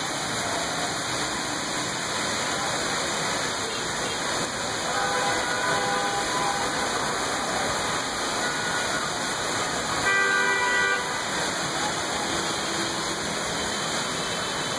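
Steady hiss of heavy rain, with vehicle horns honking twice: a fainter toot about five seconds in and a louder one lasting about a second at around ten seconds.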